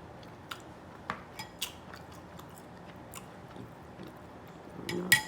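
Close-miked chewing of food, with a handful of sharp wet mouth clicks spread through it. Near the end come a short hummed sound and the loudest click.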